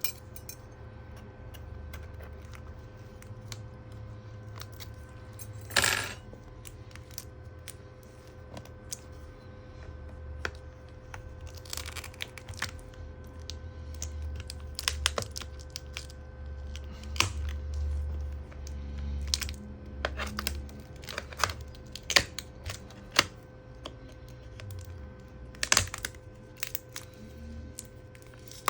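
Tools and hands prying a glued laptop battery off the palm rest of a MacBook Pro A1398, working the adhesive loose. Scattered clicks, taps and scrapes, with a louder rasping scrape about six seconds in, over a faint steady hum and low handling rumble.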